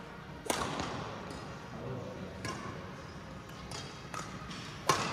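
Badminton rally: racket strings hitting a shuttlecock with sharp cracks that echo in a large sports hall, the loudest about half a second in and just before the end, with fainter hits in between.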